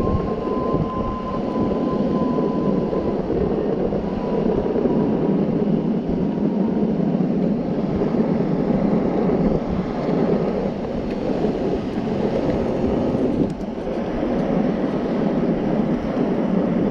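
Electric skateboard rolling over coarse asphalt, its wheels giving a steady road rumble. For the first few seconds a faint hub-motor whine falls slowly in pitch as the board slows under the brake.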